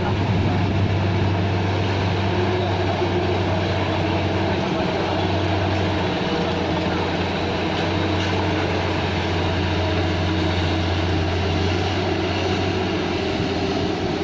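Excavator's diesel engine running steadily, a low even drone whose note shifts briefly about five seconds in.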